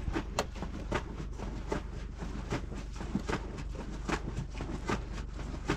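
Knife work on raw sheep offal over a metal tray: light, irregular clicks and taps, a few a second, over a low steady hum.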